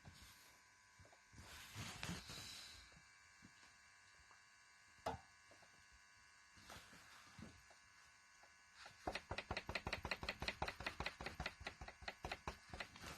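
Subaru engine's belt tensioner pulley knocking: a rapid, even ticking of about nine knocks a second that sets in about two-thirds of the way through, the sign of a faulty tensioner pulley. Before it there are only faint ticks, a brief rush of noise and one sharp click.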